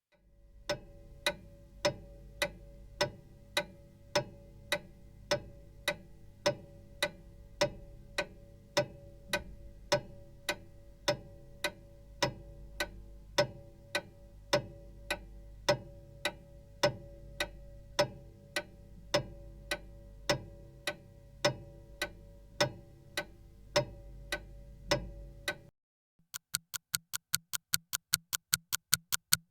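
Clock ticking steadily, about two to three ticks a second, over a low sustained tone. Near the end it cuts off and a faster, sharper, more electronic-sounding ticking with a tone beneath begins.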